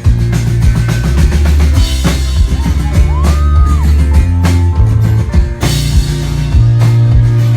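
Rock band playing live, with the drum kit and bass guitar loud and driving, and a short sliding note about three seconds in.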